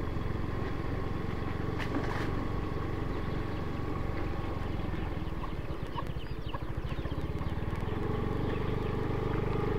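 Motorcycle engine running steadily at low speed, a continuous low rumble.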